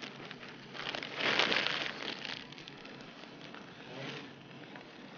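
Frozen paratha sizzling and crackling on a hot tawa, loudest about a second in and then dying down to a faint sizzle.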